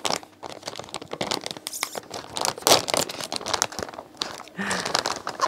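A foil-lined plastic blind bag crinkling and tearing as hands rip it open and pull it apart, in a dense run of irregular crackles.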